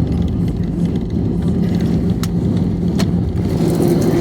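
Steady low rumble of an easyJet airliner heard from inside the cabin, with engines running and the plane moving on the ground just after landing. A faint hum is heard throughout, a couple of light clicks come in the middle, and a steadier higher tone joins near the end.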